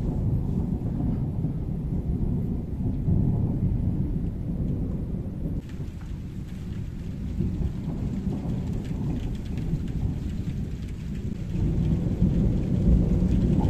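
Thunderstorm: long rolling thunder with rain starting to fall. The rain's hiss fills out about five and a half seconds in, and the rumble swells again near the end.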